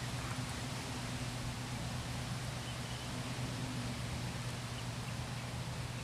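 Steady outdoor background noise: an even hiss with a low, steady hum beneath it, and no distinct hoofbeats or other events standing out.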